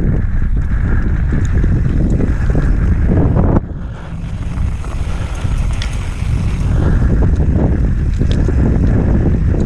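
Wind rushing over the microphone of a camera riding on an enduro mountain bike, with the tyres and bike rattling over a rough dirt trail on a fast descent. The noise is loud, drops suddenly about three and a half seconds in, and builds back up around seven seconds.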